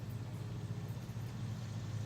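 A steady low hum of a running motor, like an idling engine, with no rise or fall in pitch.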